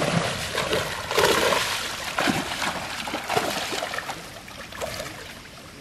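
Shallow pond water splashing and sloshing as a seine net is hauled in, with fish trapped in the net churning the surface. The splashes come irregularly, loudest about a second in, and die down near the end.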